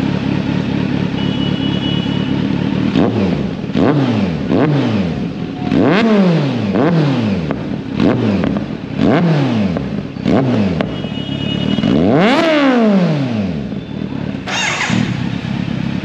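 Kawasaki Z900's inline-four engine breathing through an SC-Project slip-on exhaust: idling, then blipped through about ten quick throttle revs, the highest about twelve seconds in, before dropping back to idle.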